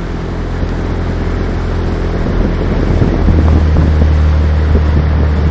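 Small motorboat's engine running steadily, with wind noise on the microphone and water rushing past the hull. The engine note shifts a little about three seconds in.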